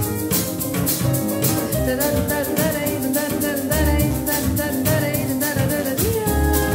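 Live small-ensemble Latin/Brazilian music: a shaker keeps a quick steady rhythm over acoustic guitar and double bass, and a woman's voice comes in singing about two seconds in.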